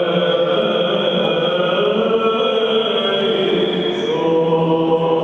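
Byzantine chant of the Greek Orthodox wedding service, sung in long, slowly moving held notes.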